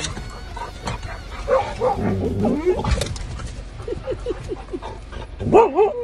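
Huskies whining and yipping with excitement, with a quick run of short yips in the middle and louder rising-and-falling whines near the end.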